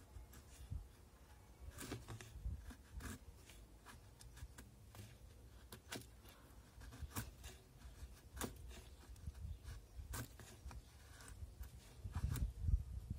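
Ganzo 7453 folding knife scraping a piece of wood to raise shavings for fire-lighting: faint, irregular short scraping strokes, about one or two a second.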